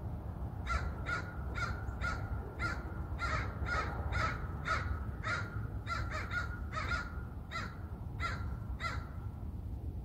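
American crow cawing: a long run of short, harsh caws, about two a second, that stops about a second before the end.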